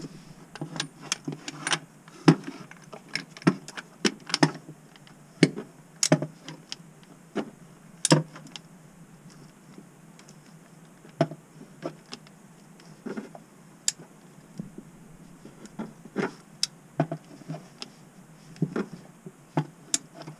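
Irregular metallic clicks and clinks from a torque wrench being worked on a new knock sensor bolt, tightening it to 29 foot-pounds. There is a quieter pause about halfway through.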